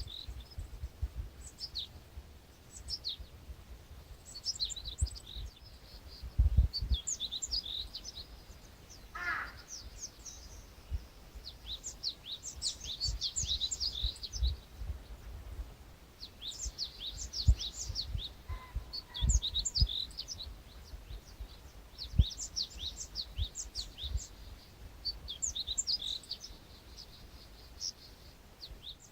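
Songbirds singing, with rapid runs of short high chirps coming again and again, and one lower falling whistle about nine seconds in. Low rumbling bumps sit underneath.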